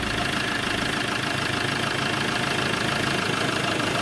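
Iveco Daily van's diesel engine idling steadily, running on with its intake pipe squeezed shut by hand. The air starvation is meant to force smoke out of an exhaust leak near the EGR.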